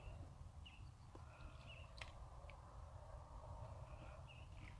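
Faint outdoor ambience: a low steady rumble with short high chirps recurring through it, and one sharp click about two seconds in.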